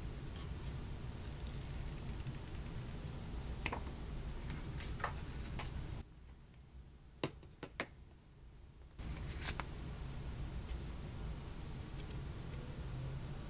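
Scattered light clicks and taps of fingers handling a smartphone in a clear plastic case, over a steady low hum. The background drops away for about three seconds midway, with a few sharp clicks in that stretch and a louder click just after it.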